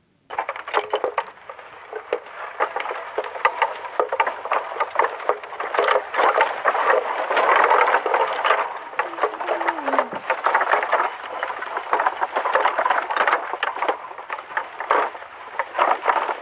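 Bullock cart moving: its wooden wheels and frame rattle and knock in a continuous clatter of quick clicks, with a brief falling squeak about ten seconds in.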